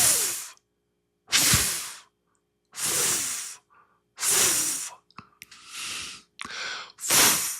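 A man repeatedly blowing the English F sound, a voiceless 'fff' of breath forced between teeth and lower lip, about seven hissing breaths, the last few coming closer together.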